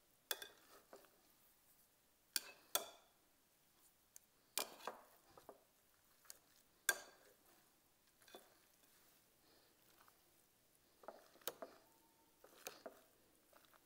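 Wire potato masher working through cooked potatoes and cauliflower in a glass bowl. Soft mashing sounds are broken by irregular sharp clinks, every second or two, as the masher knocks the glass.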